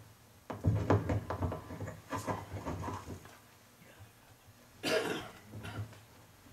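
A quiet gathering of men: a few low words and shuffling in the first three seconds, then a single short cough about five seconds in.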